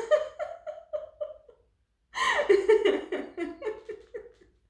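A woman laughing on purpose as a laughter-exercise: two bouts of quick 'ha-ha' pulses, each trailing off, with a short pause between them.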